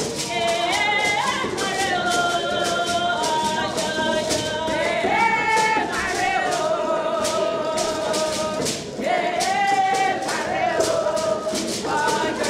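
Music with singing: voices holding long notes that slide between pitches, over a steady beat of light, high percussion.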